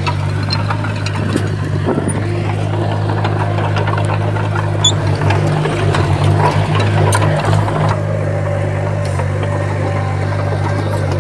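Heavy diesel earthmoving machinery running steadily under load, with short metallic clanks and knocks over the engine hum that grow busier for a few seconds around the middle.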